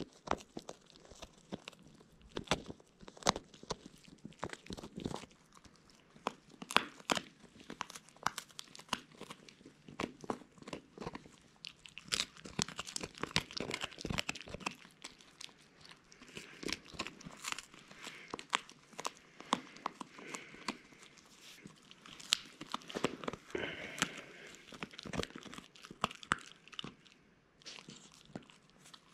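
A three-month-old beagle puppy gnawing on a chew stick: irregular sharp crunches and clicks of teeth on the chew, with stretches of steadier scraping gnawing in the middle.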